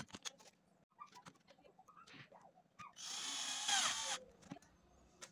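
Cordless drill with a long screwdriver bit running for just over a second, about three seconds in, turning a screw in a plastic miniature diesel engine model. Light clicks from handling the model come before it.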